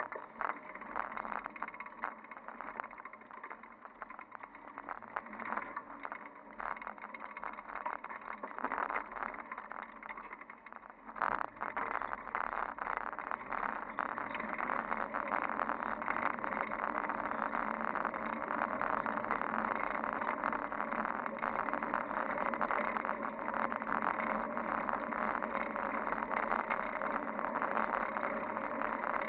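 Riding noise of a fixed-gear bicycle, heard from a camera mounted on the handlebars: tyres rolling over pavement with many small knocks and rattles. About eleven seconds in, it turns into a denser, louder, steady rush.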